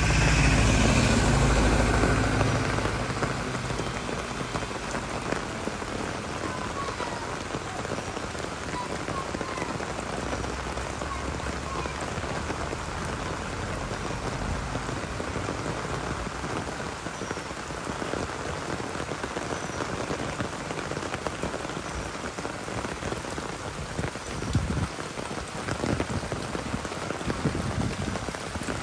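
Steady rain falling and pattering on the ground and nearby surfaces. A louder low rumble fades out over the first few seconds.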